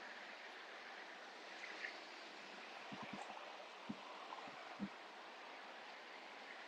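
Faint, steady outdoor hiss, with a few soft low thumps about three to five seconds in.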